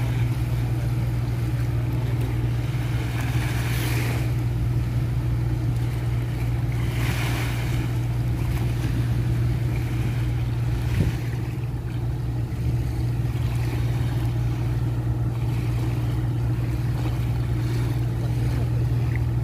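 Steady low drone of boat engines at work across the water, with small waves washing on the shore a few times.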